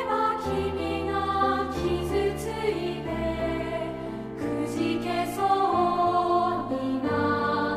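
Music soundtrack: a choir singing held, slow-moving chords.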